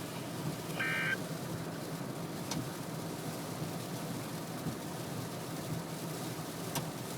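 Steady low hum under an even rushing noise, with a brief tone of several flat pitches about a second in and two faint clicks later.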